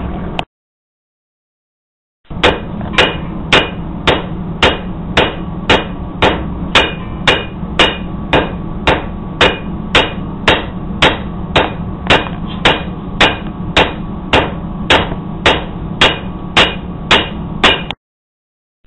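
Hammer blows on hot meteorite iron on an anvil, drawing it out into knife bar stock. There is an even run of about 27 ringing strikes, a little under two a second, over a steady low hum. The blows start about two seconds in and stop abruptly near the end.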